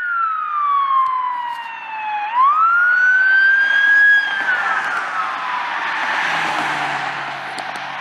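Police car siren wailing: the pitch falls slowly, climbs back quickly a little over two seconds in, holds briefly, then falls again. Road noise from the passing patrol car builds in the second half.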